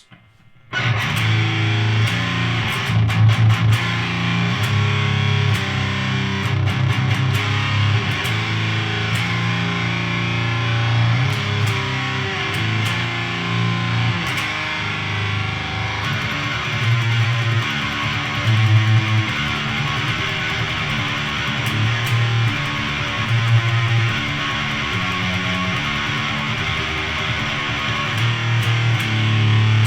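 Heavily distorted electric guitar playing a riff on low notes through a Siren Pedals Eligos HM-2-style heavy metal distortion pedal, with volume and distortion at maximum and the low control almost maxed. This is the buzzing "chainsaw" Swedish death metal tone, played through a tube amp's clean channel and a 4x12 cabinet. It starts suddenly about a second in.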